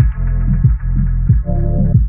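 Background electronic music: a deep bass and sustained synth chords over a steady beat about one and a half beats a second.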